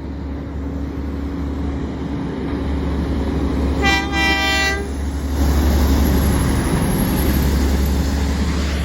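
A garbage truck's air horn blows once for about a second, about four seconds in, over the steady low rumble of the truck's engine, which grows louder just after the horn.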